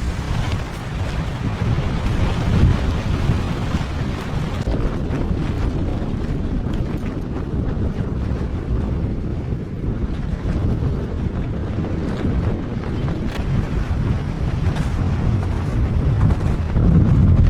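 Strong wind blowing steadily and buffeting the microphone with a low rumble.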